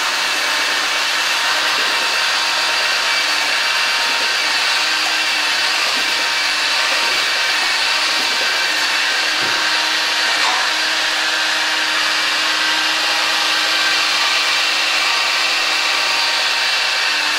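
Power drill spinning a small sanding pad, sanding a crushed-stone-and-glue inlay flush with the rim of a wooden bowl. It gives a steady motor whine over the rasp of the abrasive on stone, held at an even speed throughout.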